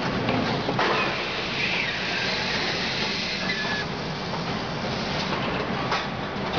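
Industrial bag-closing sewing head running as it stitches a woven polypropylene sack, a steady mechanical clatter mixed with hissing machinery noise. A sharp click comes about a second in.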